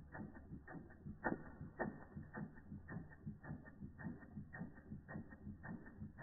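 Replica Ernst Plank tripod toy steam engine running. It keeps up an even mechanical rhythm of clicks, about two sharper ones a second with fainter beats between.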